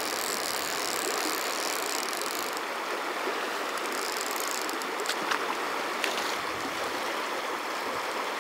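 Firehole River rushing steadily over a shallow, choppy riffle, with a few faint clicks about five and six seconds in.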